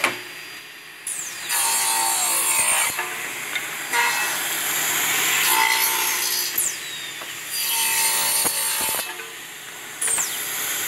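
Automatic air-operated wedge saw's circular blade cutting wedges from a wooden board, stroke after stroke, each cut starting with a falling whine. There is a short lull near the start and another about nine seconds in.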